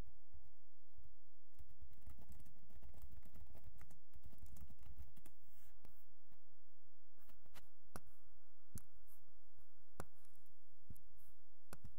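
Computer keyboard typing: irregular key clicks, with a few sharper single key presses in the second half.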